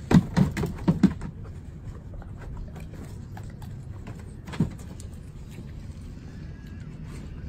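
A large dog's paws thumping onto blue training platform boxes as it jumps up: a quick run of about five thumps in the first second, then one more a little past the middle.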